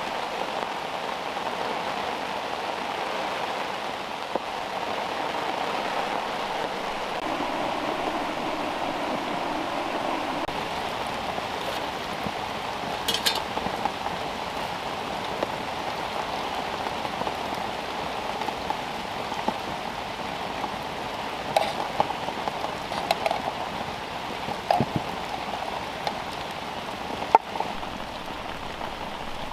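Steady rain falling on a surface, a continuous pattering hiss with scattered sharper drop taps.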